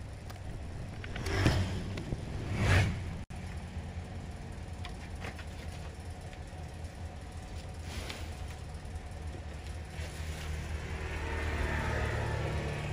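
Steady low background hum, with a few vehicles passing by: short swelling whooshes that rise and fade about a second and a half in, near the three-second mark and again about eight seconds in.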